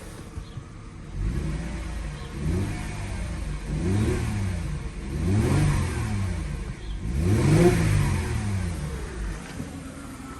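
Mercedes W204 engine revved in neutral four times, each blip rising and falling back to idle, to test the newly replaced accessory-belt tensioner. No alternator-belt squeal is heard: "quiet so far".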